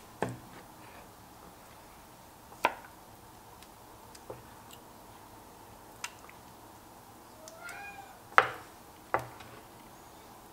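Wooden spoon and spatula knocking sharply against an enameled cast-iron pot about five times while stirring a thick sauce. A short rising-and-falling cat meow comes shortly before the loudest knock.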